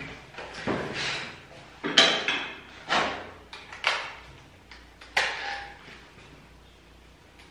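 Hard clacks and clicks from electric dog clippers and grooming tools being handled on a grooming table: about six sharp knocks in the first five seconds, then quiet handling.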